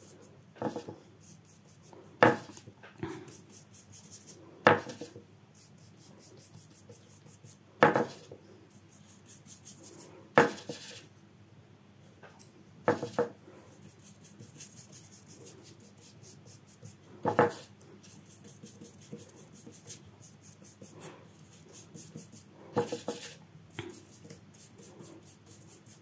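Paintbrush loaded with gouache rubbing and scratching across paper in short strokes, with a sharp clink every few seconds.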